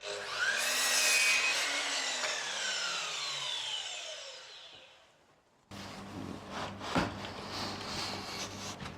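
A power tool's motor spinning down after it is switched off, its pitch falling and fading over about five seconds. Then a quieter low electrical hum with a single knock.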